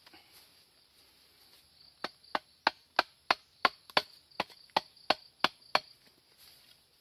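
Machete blade striking a wooden stick, about a dozen quick, sharp chops at a steady rate of roughly three a second. They start about two seconds in.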